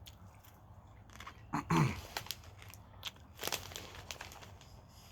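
Mini popcorn crunching as it is chewed, with scattered sharp crunches. About a second and a half in there is a short hum of the voice that falls in pitch.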